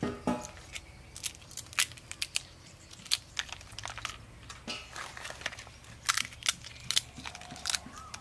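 Brittle shells of fresh tamarind pods cracking and crinkling as they are peeled apart by hand, a scatter of sharp, irregular snaps.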